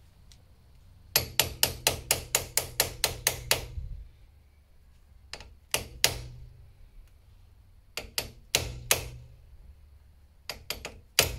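Hammering on a car's wheel hub with a makeshift striking tool: a fast run of about a dozen sharp metal strikes about a second in, then a few blows at a time in small groups.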